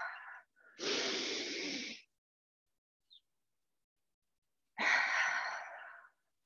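A woman breathing deeply and audibly while moving through a yoga lunge. Two long breaths, each a little over a second, come about three seconds apart.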